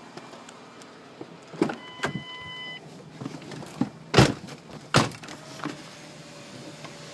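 A car's warning chime beeps steadily for about a second, then two loud thumps a little under a second apart as the car door is shut.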